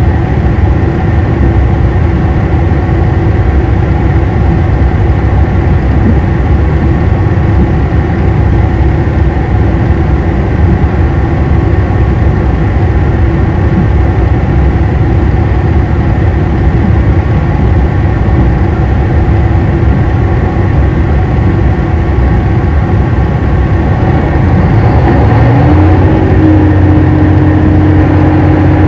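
Diesel engine of a JR Hokkaido KiHa 261 series 5000 railcar running steadily while the train travels slowly, heard inside the car. About 26 seconds in, the engine note rises and holds higher as power is applied, and it gets a little louder.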